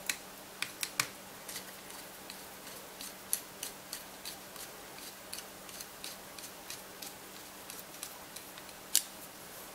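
A small screwdriver clicking and scraping against the slot-headed steel screws in the head of a Biax power scraper. Scattered sharp metallic ticks, the loudest near the start, about a second in, and near the end.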